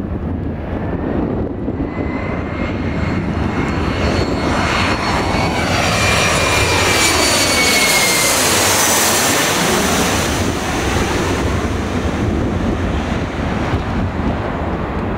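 Twin-engine jet airliner on landing approach passing low overhead: its turbofan whine and rush build to the loudest point about halfway through, then the whine drops in pitch as it moves away. Strong wind buffets the microphone throughout.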